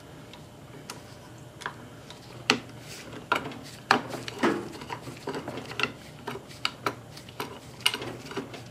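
Hydraulic floor jack, a 1970s Sears made in Japan, being pumped by its handle with the release valve closed: irregular clicks and light knocks from the pump handle and linkage. The jack has been freshly filled with hydraulic oil after a rebuild, and the pumping works the oil through the system. A faint steady hum runs underneath.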